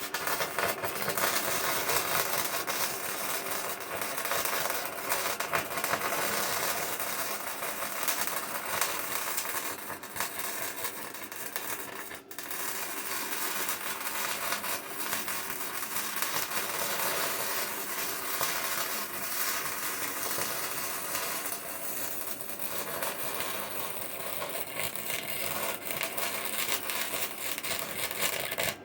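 Electric arc welding on the steel loader bucket: a steady, loud crackling arc that starts and stops abruptly, with a brief break about a third of the way through.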